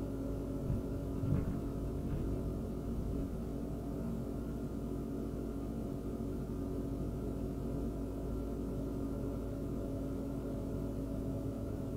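Low rumble of a van driving slowly, heard from inside the cab, with a steady droning hum of held tones over it and a brief thump about a second in.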